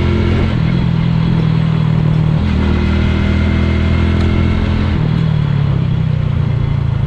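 Motorcycle engine running while riding; its steady engine note drops about half a second in, rises again about two and a half seconds in, and drops again about five seconds in.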